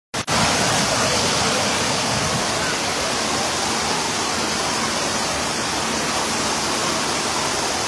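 Steady rush of water pouring from overhead shower spouts into an indoor pool.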